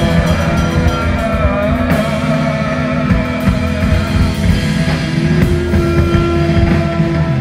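Rock band playing an instrumental passage with electric guitar, bass and drums. A long held note comes in about five seconds in.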